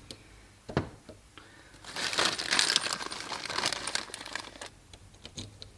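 Tools and small parts being handled and rummaged through on a workbench: a sharp knock about a second in, then two to three seconds of clinking, rattling and rustling that dies away near the end.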